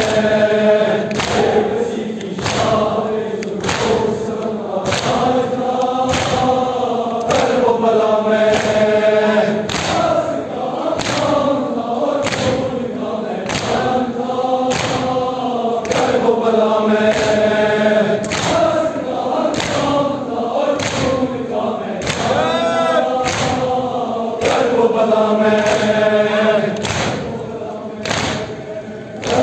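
A large crowd of men chanting a Muharram mourning lament (noha) in unison, kept in time by rhythmic chest-beating (matam): a thud about every three quarters of a second.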